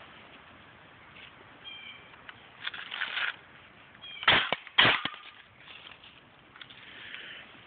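Two sharp knocks about half a second apart, midway through, after a brief rustle.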